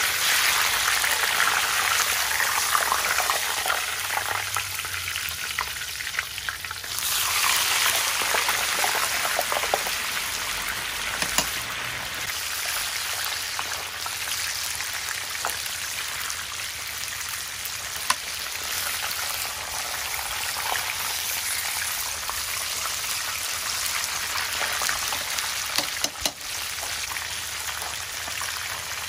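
Hot oil sizzling and bubbling steadily around a battered half chicken as it deep-fries in a pot, briefly louder about seven seconds in, with a few faint clicks.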